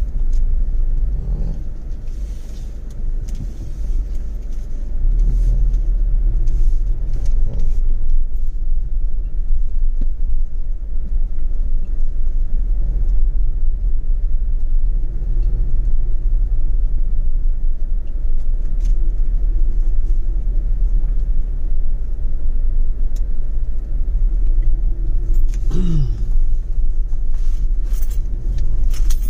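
Car driving slowly over a grassy track: a steady low rumble of engine and tyres.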